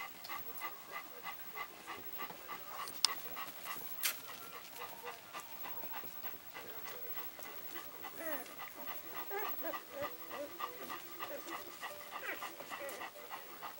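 Nursing mother dog panting steadily, about three breaths a second, while newborn puppies give small squeaks and grunts as they suckle, mostly in the second half. Two sharp clicks sound a second apart a few seconds in.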